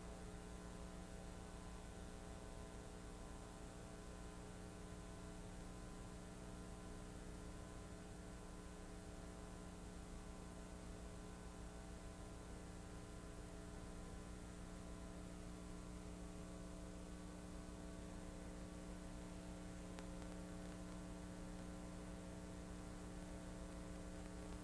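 Faint, steady electrical mains hum with a light hiss, with no other sound over it.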